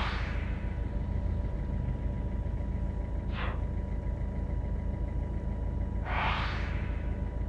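Steady low rumble of a car driving on the road, with two whooshes of passing traffic: a short one about three seconds in and a longer one about six seconds in.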